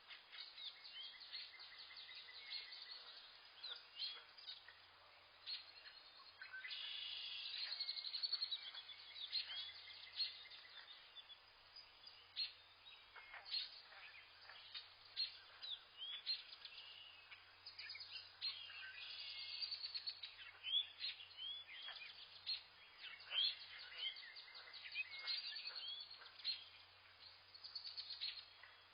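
Several wild birds chirping and calling together, with many short, quick up-and-down chirps overlapping throughout.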